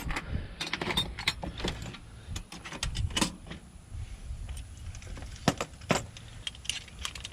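Keys and small metal lock parts clinking and jangling as they are handled: an irregular series of sharp clicks, a few louder ones about three, five and a half and six seconds in.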